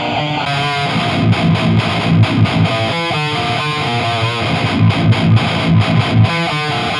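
Heavily distorted seven-string electric guitar riff played through a new Marshall 1960A 4x12 cabinet: low palm-muted chugs broken by short stops, with a few held notes between them.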